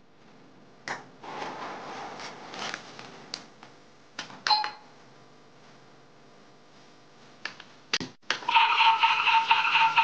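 Toy washing machine being operated: plastic clicks and handling as its button is pressed, with a short electronic beep near the middle. About eight seconds in, its electronic beeping tune starts and plays loudly as the drum spins.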